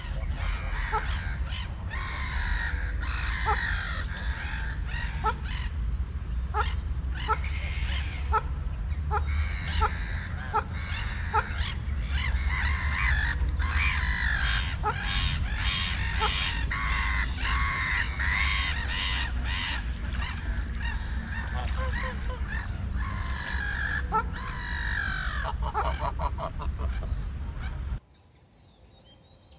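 A flock of birds calling noisily, many harsh honking and cawing calls overlapping, with sharp clicks among them over a steady low rumble. It all cuts off suddenly about two seconds before the end.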